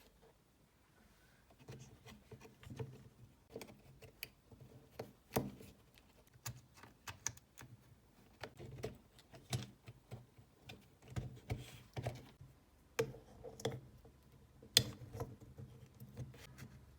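Irregular light clicks, taps and knocks of small hard parts being handled and fitted by hand, with a few sharper knocks about five seconds in and near the end.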